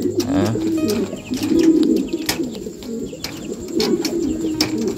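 Domestic fancy pigeons cooing continuously, several overlapping coos, with sharp clicks here and there.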